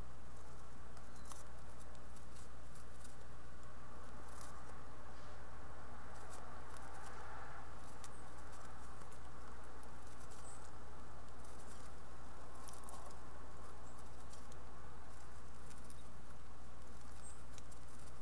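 Young house finches shuffling in a wooden nest box: scattered light scratches and ticks of their feet on the box floor, over a steady low hum.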